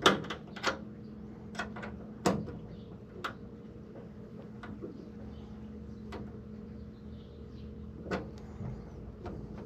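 Scattered small clicks and taps of a hand tool and metal parts being handled while a throttle cable sits in its connector and the connector's set screw is tightened, about a dozen in all, the sharpest about two seconds in. A steady low hum runs underneath.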